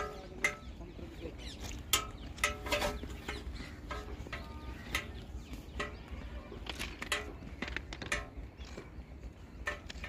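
Footsteps crunching on loose stone railway ballast, irregular and sharp, with a few short bird calls in the background.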